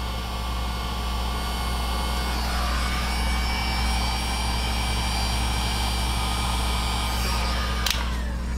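Handheld heat gun running, a steady blowing rush with a fan-motor whine, as it shrinks heat-shrink tubing over a soldered wire splice. It cuts off abruptly near the end.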